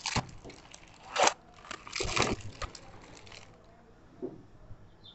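Cardboard packaging torn and crumpled by hand, in several short crinkling, crunching bursts: the loudest about a second in, a cluster around two seconds, and a smaller one near the end.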